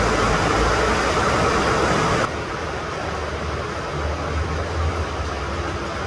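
Steady rain falling as an even hiss. About two seconds in it cuts abruptly to a quieter, duller rain with a low rumble underneath.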